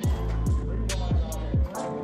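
Background music with a hip hop beat: deep bass hits that drop in pitch, held low bass notes and regular hi-hat ticks.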